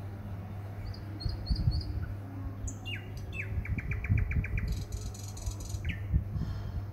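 A small bird chirping: a few short high notes, then a falling note and a quick run of chirps, about eight a second, around the middle, and another falling note near the end. A low hum and rumble sit beneath.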